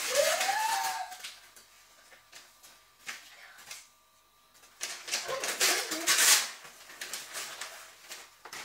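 Wrapping paper rustling and tearing as a present is unwrapped, in uneven bursts, the loudest about five to six and a half seconds in. A short rising vocal sound opens it.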